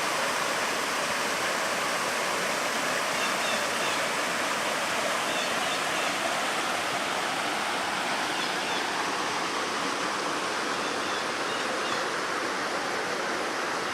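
Waterfall and stream running high, a steady rush of falling water with a lot of water flowing.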